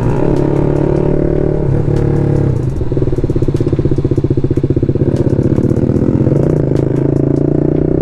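Single-cylinder BMW G310 RR engine with an aftermarket exhaust running under way; about two and a half seconds in the throttle is rolled off and the note drops to a fast, pulsing burble as the bike slows, with scattered light crackles.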